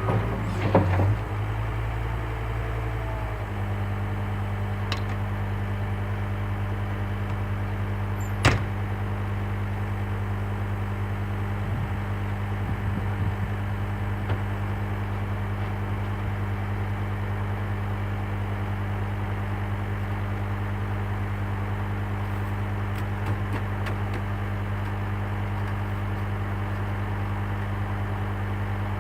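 An engine idling steadily, its tone settling a few seconds in, with a single sharp click about eight and a half seconds in.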